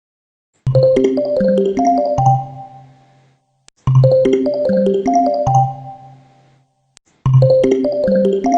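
Background music: a short keyboard-like melody of a few quick notes over a bass note, looping three times, about every three and a half seconds.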